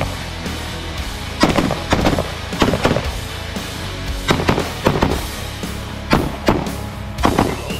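Shots from an AR-style semi-automatic rifle, fired singly and in quick pairs about every half second to second, over background music.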